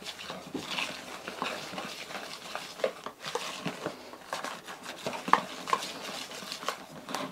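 Wire whisk beating runny beer batter in a plastic bowl: a run of quick, irregular wet taps and clicks of the wires against the bowl.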